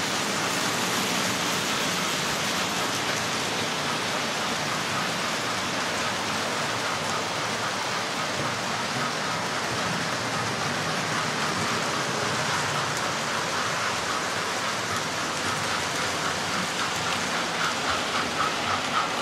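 Model trains running around a layout: a steady rushing of wheels and motors on the metal track. A fast, even clicking of wheels over the rail joints comes in during the second half and grows stronger near the end.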